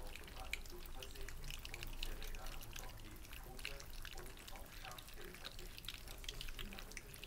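A litter of puppies eating soft food from stainless steel bowls: fast, overlapping licking and lapping, heard as many small wet clicks and smacks.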